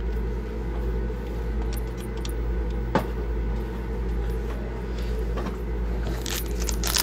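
Steady low machine hum in a small room, with a single sharp click about three seconds in. Near the end a foil trading-card pack wrapper crinkles as it is picked up.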